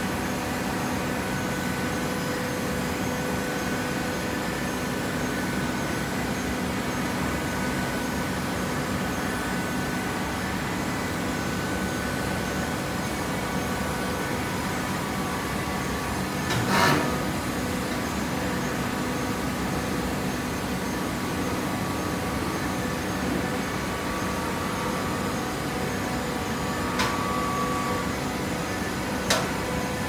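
Horizontal baler for coconut fibre running with a steady hum. A sharp knock comes about halfway through, and two shorter knocks come near the end.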